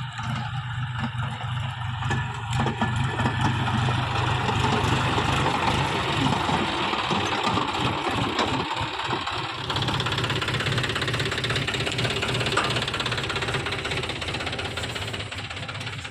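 John Deere tractor's diesel engine running steadily, growing louder over the first few seconds.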